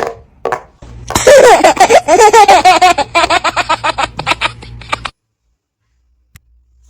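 A baby laughing: a long run of quick, pitched giggles lasting about four seconds, cutting off suddenly.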